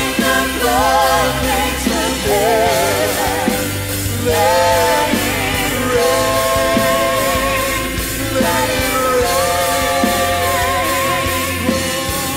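Church praise band playing a rock-style worship song: a lead melody with vibrato over steady bass and a regular drum beat.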